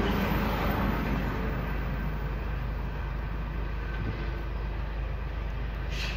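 Steady low rumble of a car on the move: road and engine noise. A brief hiss near the end.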